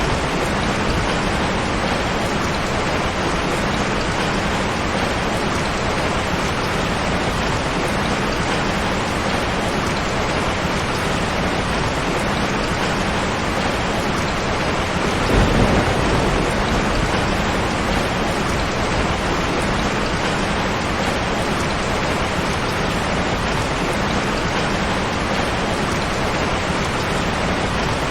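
Heavy rain falling steadily on a tin roof as an even hiss, with one brief louder thump about halfway through.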